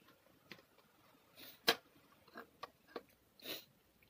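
Close-miked eating sounds: fingers and a ceramic spoon working rice on a ceramic plate, with a few sharp clicks, the loudest about a second and a half in, and a couple of short noisy mouth sounds.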